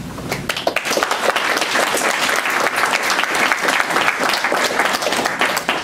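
Audience applauding: dense clapping from many hands that starts just after the speaker's thanks and dies away at the very end.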